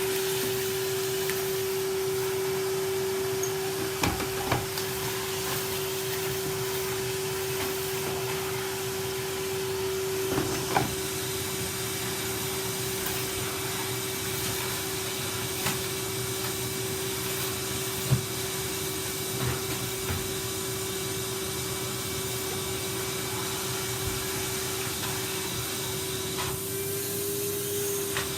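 Vacuum cleaner running steadily, a constant motor whine over a hiss of airflow, with a few sharp knocks, the loudest about eighteen seconds in.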